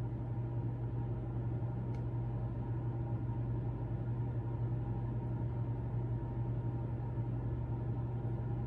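Steady low hum of room noise, several steady tones stacked over a deep drone, with one faint tick about two seconds in.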